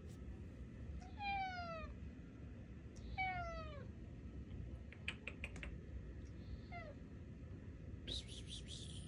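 Tuxedo cat meowing: two long meows that fall in pitch, about a second and three seconds in, then a short one around seven seconds. A quick run of clicks comes between them.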